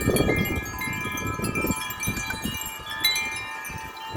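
Wind chimes ringing in strong wind: many overlapping tones, with fresh strikes near the start and again about three seconds in. Wind rumbles on the microphone for the first couple of seconds, then eases.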